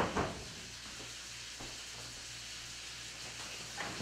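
A large beef roast searing in a stainless steel sauté pan on an electric burner, a steady sizzle, with a soft knock right at the start.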